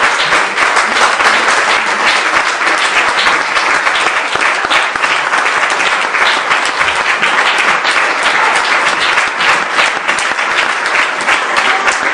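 Audience applauding: dense, steady clapping that holds at the same level throughout.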